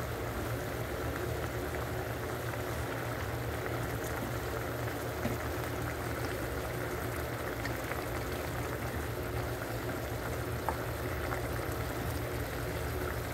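Squid simmering in a pan of soy-vinegar sauce: a steady bubbling hiss over a low hum, with a couple of faint knocks from a wooden spatula stirring.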